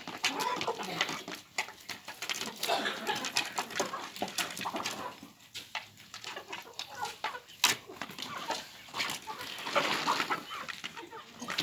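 Chickens clucking on and off, mixed with scattered sharp clicks and knocks, one louder click about two-thirds of the way through.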